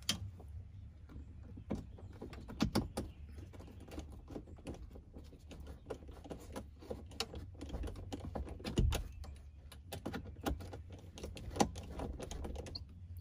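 Irregular small clicks, taps and rattles of hands working a factory trim screw and a nylon mounting strap against the plastic roll-bar trim of a Jeep, with one duller thump about two-thirds of the way through.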